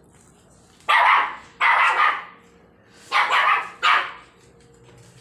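A puppy barking four short times, in two pairs about two seconds apart.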